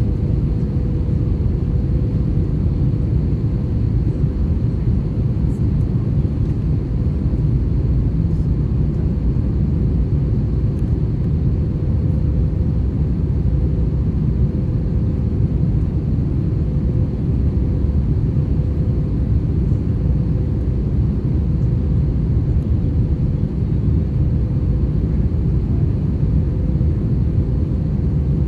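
Airbus A321 cabin noise in flight: a steady low rumble of engines and airflow, with a faint steady hum, heard inside the cabin.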